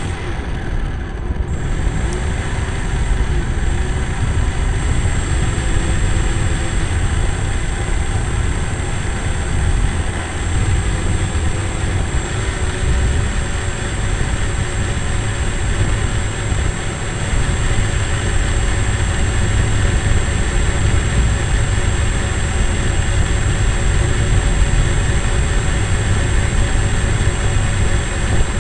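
Small electric motor and propeller of a GWS Slowstick model plane running steadily in flight, heard from on board: a constant drone with a thin high whine, over a heavy low rumble of rushing air.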